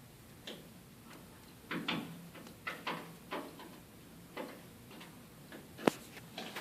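Irregular light clicks and knocks from objects being handled, clustered in the middle, with one sharp, louder click shortly before the end.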